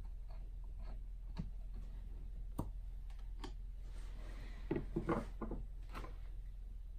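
Small metal clicks and knocks of a milling attachment's steel spindle head being lifted off and handled, with a brief rub and a cluster of louder knocks about five seconds in.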